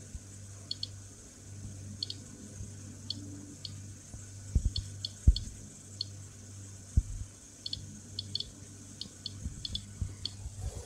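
Geiger-counter dosimeter chirping short, high beeps at irregular intervals, singly and in pairs or threes, each beep a detected particle. A steady low hum runs underneath, and a few dull thumps come through, the loudest about five seconds in.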